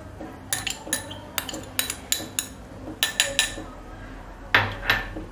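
A small glass bowl clinking against a steel mixing bowl as green chilli paste is tapped and scraped out: a quick run of sharp clinks, then two louder knocks near the end.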